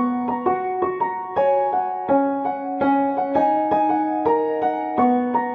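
Background music: a gentle piano melody, notes struck at an even pace of about three a second.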